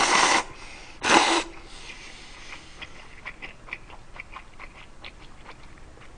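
Slurping noodle-soup broth from a bowl: a loud slurp at the start and a shorter one about a second in, followed by soft wet chewing clicks.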